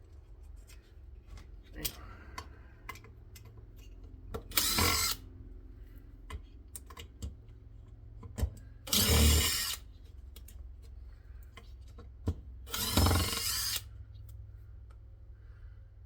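Power drill running in three short bursts, each under a second long, backing Phillips screws out of an aluminium heatsink. Light clicks and taps fall between the bursts.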